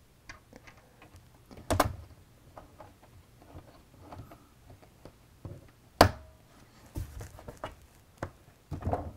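Allen key turning the bottom mounting screw of a wall-mounted electric panel heater: scattered small clicks and scrapes of the key against the screw and the heater's housing, with a sharper knock about two seconds in, a louder click about six seconds in, and a few more clicks near the end.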